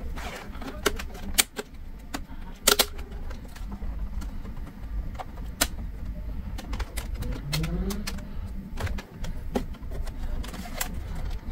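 Scattered clicks and knocks as the wire stand of an HP all-in-one PC is handled and its metal legs are pushed into the sockets in the plastic casing, over a steady low rumble.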